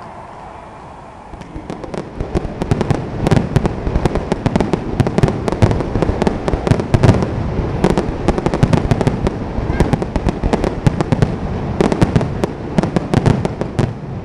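Fireworks finale barrage: a quieter murmur gives way, about a second and a half in, to a loud, dense, continuous run of crackling bursts and booms, many per second.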